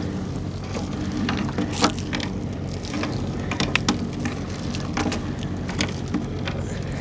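Small fishing boat's engine running steadily, with scattered clicks and knocks over it.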